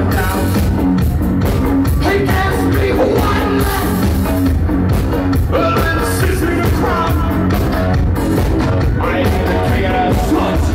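Live band playing loud, driving music with a steady drum beat, electric guitar, bass and synth keyboard, and a singer's voice over it at times.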